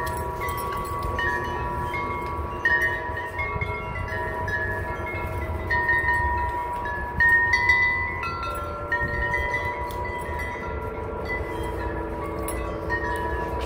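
Wind chimes ringing on and off, several clear tones at different pitches overlapping and dying away, over a low rumble.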